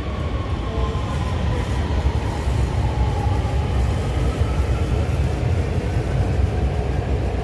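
Lahore Orange Line metro train running: a steady low rumble with faint whining tones that glide slowly in pitch.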